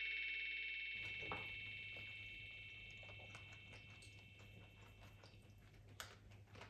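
A held music chord fades out, leaving faint room tone with a low hum. A few light clicks of a fork on a breakfast plate come through, the sharpest near the end.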